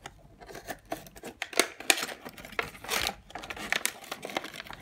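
Plastic packaging crinkling and a cardboard box rustling as a boxed portable speaker is pulled out of it, in irregular crackles and clicks.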